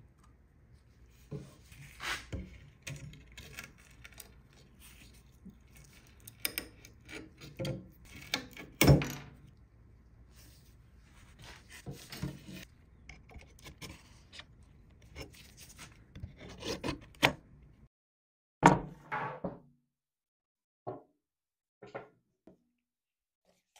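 Charred wooden skateboard deck handled by gloved hands: irregular rubbing and knocking of the burnt wood against a wooden workbench, with a few louder knocks and some light taps near the end.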